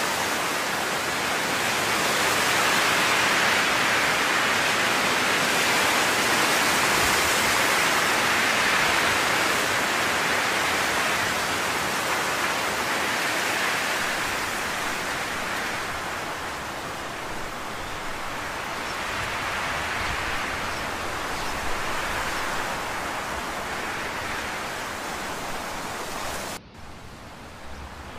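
Steady rushing noise with no distinct events, like rain or a fan; about two seconds before the end it drops abruptly to a quieter, duller hiss.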